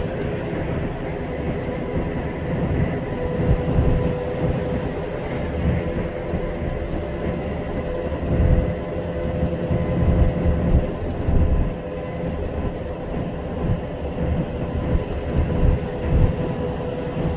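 Cabin noise of a vehicle travelling at expressway speed: a steady rumble of tyres on the road with a faint steady hum, the low rumble swelling a few times.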